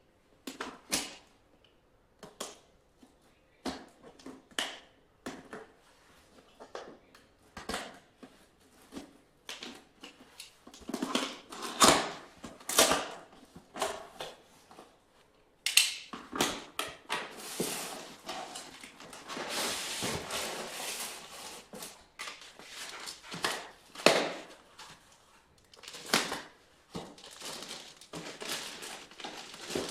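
Irregular clicks, taps and knocks of small hardware being handled, with a busier stretch of rustling and scraping in the middle and a few sharper knocks.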